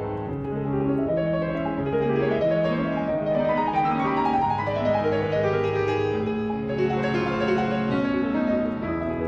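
Background piano music, a steady flow of sustained chords and melody notes.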